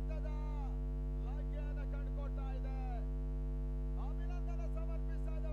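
Loud steady electrical hum, a low buzz with several steady pitches stacked above it, with quieter voices talking under it.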